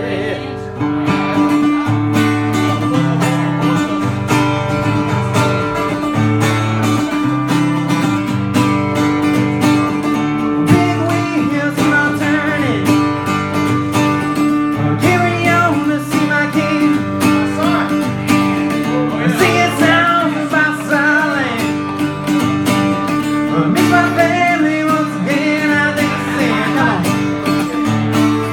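Acoustic guitar strummed in a steady rhythm, played live, with a voice singing over it from about twelve seconds in.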